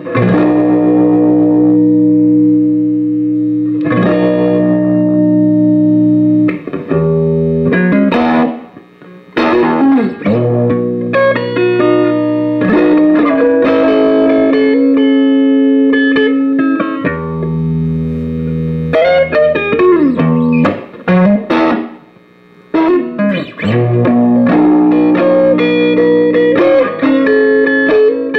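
Electric guitar played through a Behringer GMX212 modeling combo amp on its high-gain mode. It plays sustained chords and single-note lines that stop briefly about 9 seconds in and again about 22 seconds in.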